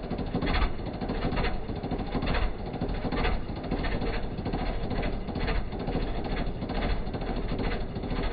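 Leyland 285 tractor puller's turbocharged diesel engine running steadily with a rapid, even firing beat and a sharper burst of noise about once a second.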